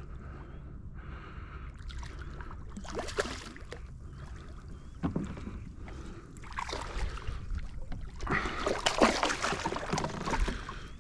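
A hooked snook splashing at the water's surface beside a kayak, in repeated bursts that are loudest over the last few seconds. Before that there is a low, steady wind-and-water rumble.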